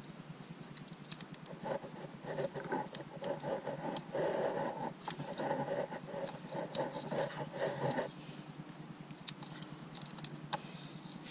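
Hands wrapping harness tape around a bundle of wires and handling plastic connectors: scratchy rustling with many small clicks, busiest from about two to eight seconds in.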